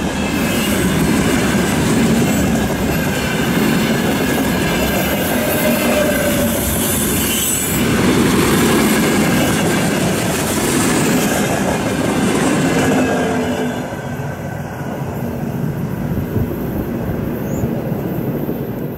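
Freight train wagons (container flatcars, gondolas and tank cars) rolling past close by, a dense steady rumble and clatter of steel wheels on rail. It eases off after about 14 seconds as the end of the train goes by.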